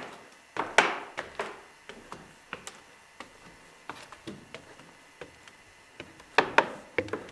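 Irregular knocks and taps on wood. A cluster of louder ones comes about a second in, and another near the end.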